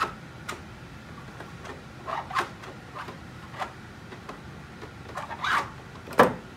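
Hard 3D-printed plastic parts of a jet engine nacelle model being handled: a string of light clicks and knocks with a short scraping rub, the sharpest knock near the end.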